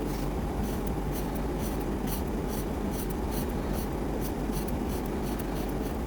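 Coloring strokes on paper: a drawing tool scratching back and forth, about two to three strokes a second, over a steady low hum.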